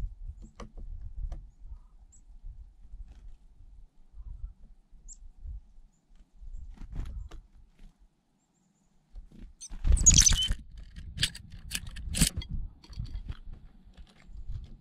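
Black-capped chickadee at a teacup of sunflower seeds: a burst of sharp, high chirps and clicks about ten seconds in, with a few faint high chirps earlier, over a low rumble.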